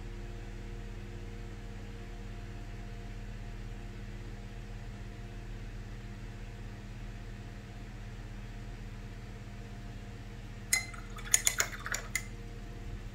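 A paintbrush clinking against a glass water jar as it is rinsed, a quick run of clinks and taps near the end. Under it a steady low hum.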